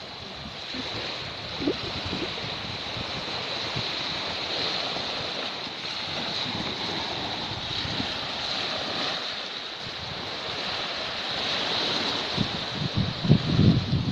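Small sea waves washing onto a sandy shore in a steady wash, with wind buffeting the microphone in gusts that grow stronger near the end.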